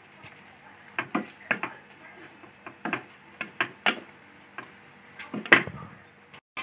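Wooden spatula knocking and scraping against a nonstick frying pan while stir-frying bean sprouts and scrambled egg: a string of irregular sharp clacks, the loudest about five and a half seconds in.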